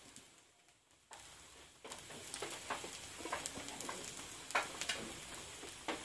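Metal spatula stirring and tossing chowmein noodles with scrambled egg in a kadai: light clicks and scrapes of the spatula against the pan over a faint frying sizzle, starting after about a second of near silence.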